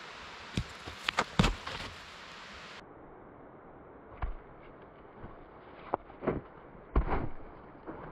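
A few sharp wooden knocks and clatters, the loudest about a second and a half in, typical of a stick trap trigger being sprung. After that come scattered, duller knocks and rustling.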